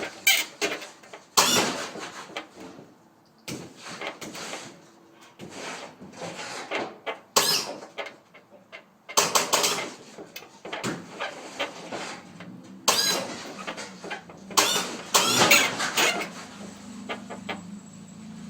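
Lowrider hydraulic suspension worked from the switches: repeated bursts of pump and valve noise with squeaks, each lasting about a second, separated by short pauses. A steady low hum begins near the end.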